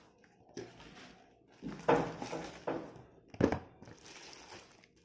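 Cardboard box and its packaging being opened and handled: rustling and scraping of card, with louder bursts of handling about two seconds and three and a half seconds in.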